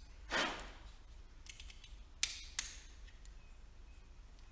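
Wiring loom being handled: a short rustle of wires, then a few sharp clicks of plastic connectors being handled and pushed together.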